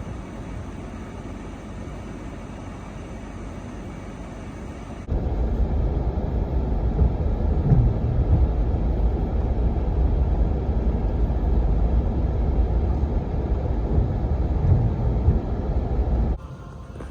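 Steady road and engine noise of a Toyota 4Runner heard from inside the cabin while it drives. It jumps abruptly louder and heavier about five seconds in and drops back abruptly near the end.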